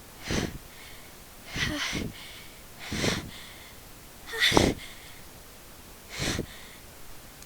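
A person's sharp, catching breaths as a sneeze builds: five short, noisy intakes about a second and a half apart, the fourth the loudest.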